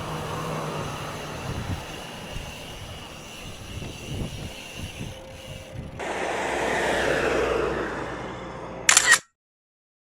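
Strong wind rushing over an action camera's microphone while riding a bicycle, swelling louder about six seconds in. About nine seconds in comes a short, sharp double burst, and then the sound cuts off abruptly.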